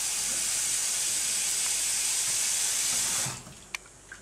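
Kitchen tap running water into a saucepan in the sink, a steady hiss; the tap is turned off a little over three seconds in, followed by two faint clicks.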